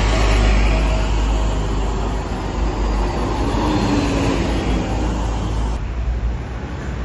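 Double-decker buses and cars passing close by on a road: a deep engine drone with tyre and traffic noise. It is loudest at the start and eases off, with a small drop near the end.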